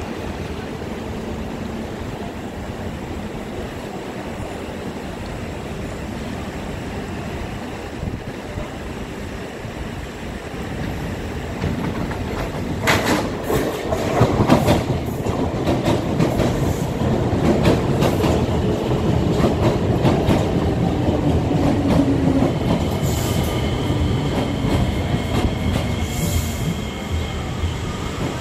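SMRT MRT train approaching and running into the station on elevated track: a steady rumble grows louder from about twelve seconds in, with a quick run of clicks as the wheels cross rail joints and points. It is followed by a slowly falling whine and, near the end, high-pitched wheel squeal as the train slows alongside the platform.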